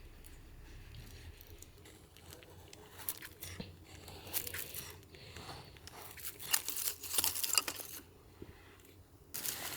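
Close handling noises: rustling and crinkling with a run of sharp crackles and clicks, then a sudden louder burst of rustling near the end.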